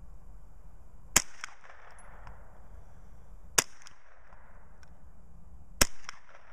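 Three single .22 LR shots from a Ruger 10/22 semi-automatic carbine, a bit over two seconds apart, each a sharp crack followed by a brief echo.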